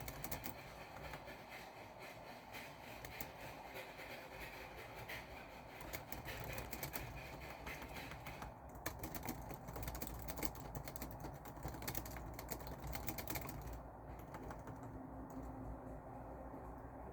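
Typing on a keyboard: a quick run of keystroke clicks that thins out in the last few seconds.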